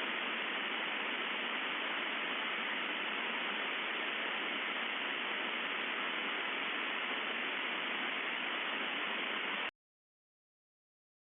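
Steady static hiss with no deep bass and no high treble, starting with a click and cutting off suddenly with a click near the end.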